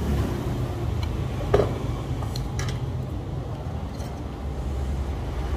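Metal spoon and fork clinking against a plate while noodles are twirled and lifted, with one sharp clink about a second and a half in and a few lighter ones after, over a steady low rumble.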